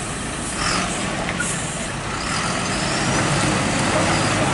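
UD Quester tanker truck's diesel engine running under load as it tries to climb a slippery mud incline, its wheels slipping. A couple of brief hissing bursts come about a second in.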